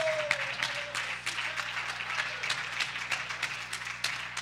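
Congregation clapping and applauding, with many sharp, uneven claps. A drawn-out shout fades out in the first second.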